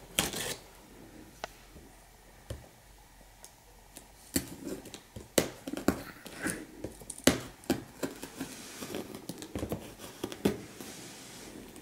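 Cardboard shipping box being cut open with a blade and handled: scattered small clicks, taps and scrapes, starting about four seconds in after a quiet stretch.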